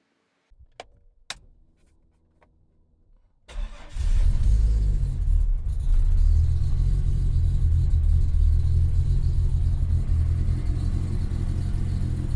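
A naturally aspirated 3.8 L Ecotec V6 in a burnout car, coming in suddenly and loud about three and a half seconds in and then running hard and steady. Before it there are only a couple of faint clicks.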